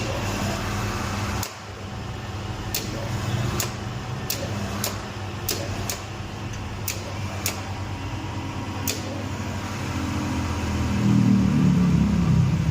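A steady low mechanical hum that grows louder about ten seconds in, with about a dozen sharp clicks at uneven intervals.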